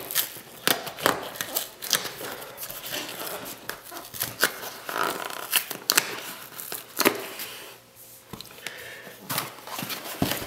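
Hands prying and pulling at the flap of a cardboard Priority Mail box that resists opening: irregular scraping, rubbing and small tearing sounds of cardboard and paper, easing off briefly about three-quarters of the way through.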